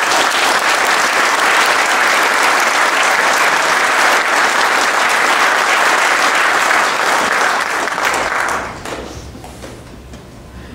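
Audience applauding, dense steady clapping that dies away after about nine seconds.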